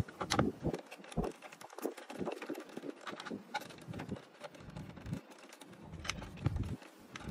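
Irregular light clicks, taps and handling knocks as an MKS HBL 6625 servo is worked into its mounting frame with a small hand tool.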